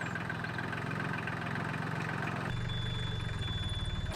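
An engine idling steadily. The sound changes abruptly about two and a half seconds in, and a thin, steady high whine joins it for the last second or so.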